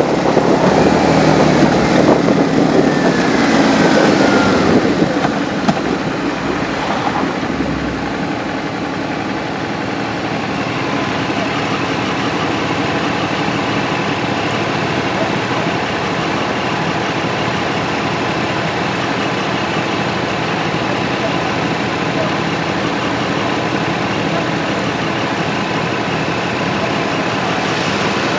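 Motorcycle engine slowing down from riding speed with wind rushing over the microphone, its pitch falling over the first few seconds, then motorcycle engines idling steadily while stopped.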